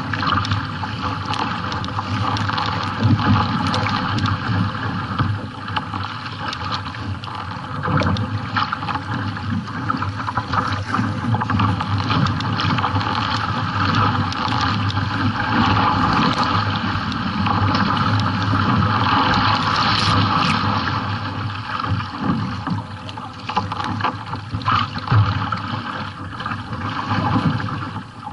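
Choppy sea water splashing and slapping against a kayak's hull while it is paddled, with wind buffeting the microphone.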